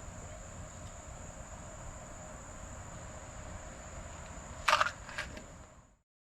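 Crickets trilling steadily, a continuous high-pitched tone over faint outdoor background. Near the end come two short, sharp sounds about half a second apart, the first the louder, and then all sound fades out.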